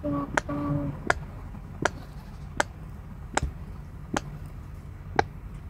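Silicone pop-it fidget toy, its bubbles pressed in one at a time with a stick, giving sharp pops about every three-quarters of a second, seven in all.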